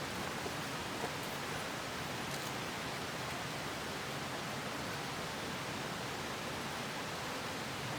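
Headwater stream running: a steady, even rush of water.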